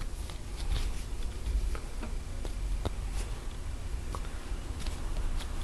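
Faint, irregular small clicks and scratches of fingers twisting and pressing pipe cleaners on a craft figure, over a steady low hum.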